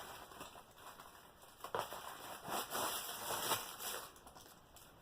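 Rustling and light knocks of packaging being handled as a diamond painting kit is taken out of its box, irregular and busiest in the middle.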